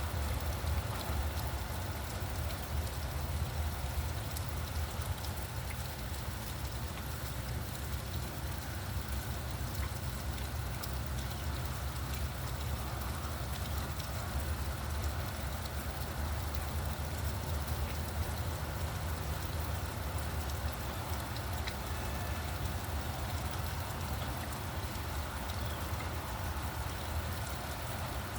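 Steady rain falling and pattering on surfaces, with a low steady rumble of traffic underneath.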